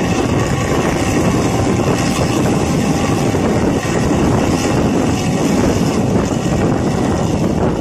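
Steady engine and road noise of a vehicle on the move, with wind buffeting the microphone.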